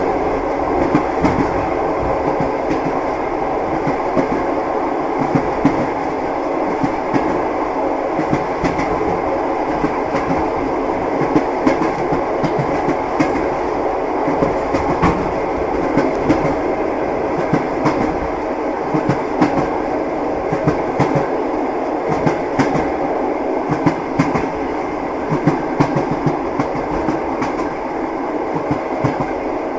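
Passenger train carriage running along the track: a steady rumble with the clickety-clack of the wheels over rail joints and small irregular knocks throughout.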